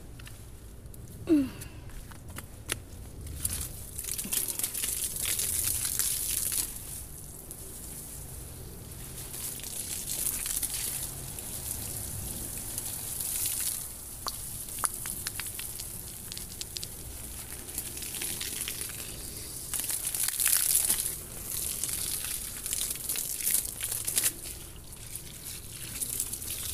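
Water from a garden hose spraying onto leaves and soil: a hiss that swells and fades as the stream moves across the plants. A short, sharp sliding sound about a second in.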